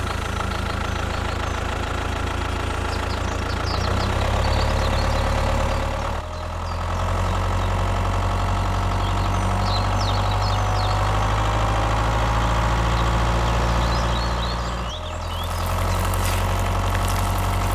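Tractor engine running steadily at idle, its note shifting briefly about six seconds in and again near fifteen seconds.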